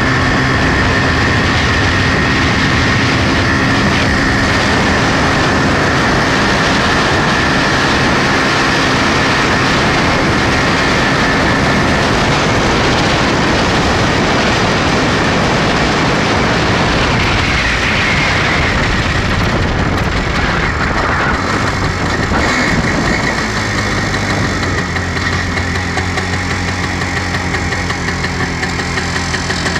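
1962 MZ 250cc single-cylinder two-stroke motorcycle engine running steadily under way, with wind and road noise from the sidecar. From about two-thirds of the way in, the engine note shifts and settles lower and a little quieter.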